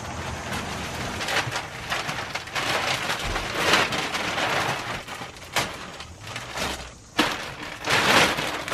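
Plastic mattress wrapping crinkling and rustling as a roll-packed mattress is pulled out of its bag and unrolled. It goes on continuously, with louder crackles about halfway through and near the end.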